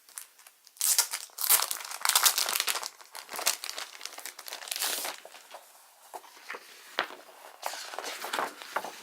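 Crinkling and rustling as a poster is taken out of its wrapping and unfolded by hand. The rustling is loudest in the first half, with softer, scattered rustles and small clicks near the end.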